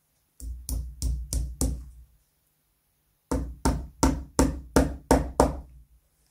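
Small hammer tapping a brass-headed tack through a leather rosette into a rocking horse's bridle: a run of five blows, a pause of about a second, then seven more, about three a second.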